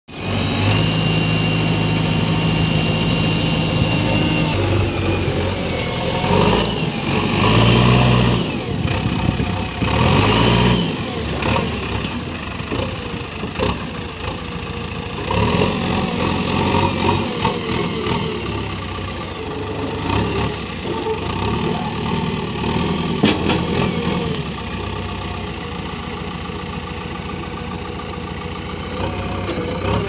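Diesel engine of a JCB 3DX backhoe loader running, revving up in louder surges about 7 and 10 seconds in, then working at varying speed.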